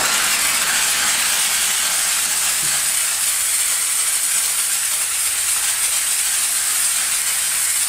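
McCulloch Deluxe steam cleaner blowing a continuous jet of steam over grimy suspension arms: a loud, steady, high hiss.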